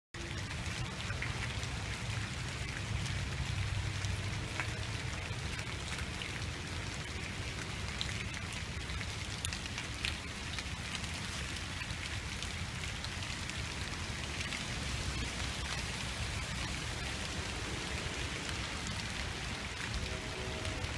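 Steady rain falling on a wet paved path and fallen leaves, an even hiss with scattered close drop ticks. A low rumble sits under it in the first few seconds.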